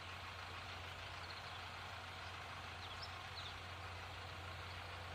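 Steady low hum of distant road traffic, with a few faint high chirps about three seconds in.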